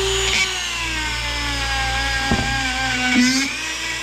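Rotary tool running at high speed, its small bit working on the cast-iron housing of a 1941 South Bend lathe's gear train. The whine sags in pitch as the bit is pressed against the metal and picks up again near the end.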